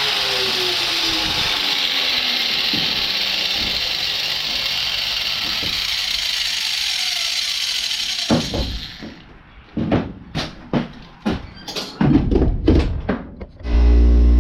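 Angle grinder grinding steel with a steady hiss for about eight seconds. Then a run of separate clanks and clicks as metal parts are handled, and a motor starts up with a loud steady hum just before the end.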